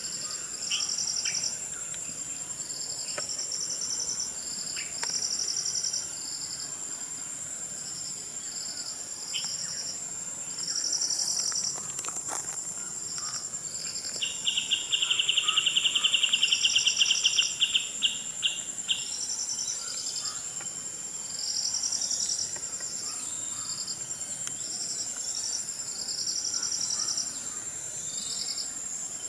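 Insects calling in forest: a steady high-pitched whine, short pulsed chirps repeating every second or two, and a louder rapid pulsing trill for about five seconds midway. A few faint bird chirps in the first half.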